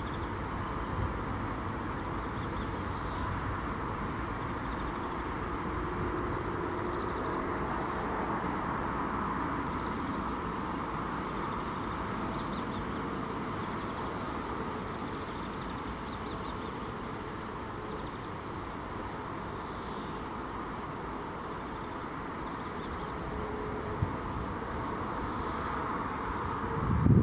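Garden ambience: a steady hum of distant traffic with faint bird chirps scattered throughout, and a short low thump at the very end.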